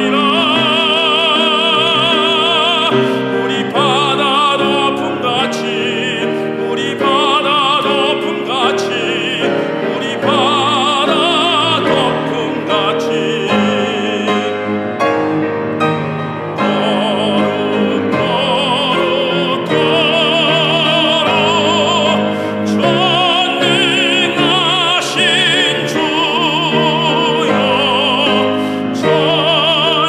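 A male solo voice singing a hymn in Korean in an operatic style, with a wide vibrato on the held notes, accompanied by piano and cello.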